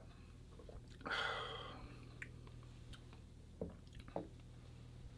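A person takes a short slurping sip of beer from a glass about a second in, then two light knocks of glasses being set down on the bar counter.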